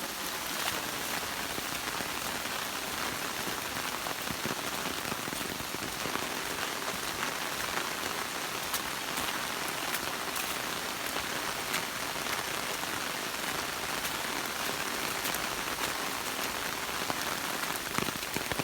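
Steady rain falling after a thunderstorm: an even, constant hiss with scattered sharp drop taps.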